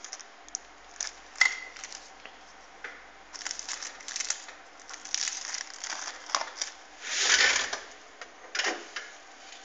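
Handling noises of a driver CD being carried to a desktop computer and fed into its disc drive: scattered clicks and knocks, with a louder noisy burst lasting under a second about seven seconds in and a shorter one near the end.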